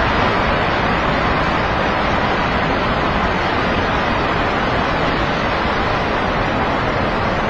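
Landslide: loose rock and gravel pouring down a mountain slope, a steady loud rushing rumble with no single impacts standing out.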